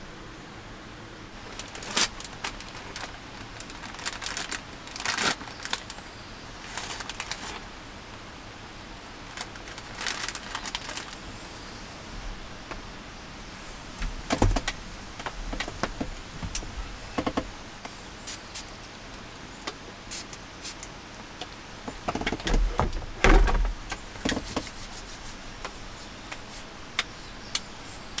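Scattered clicks, taps and rustles of hands and a cloth working over a wooden table and objects being handled, with a few heavier knocks a little after twenty seconds in. Under them, a steady hiss of rain.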